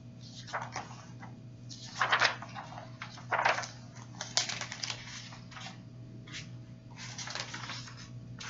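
Pages of a Bible being leafed through and rustled, in a string of short bursts at irregular intervals, while looking for John chapter 3.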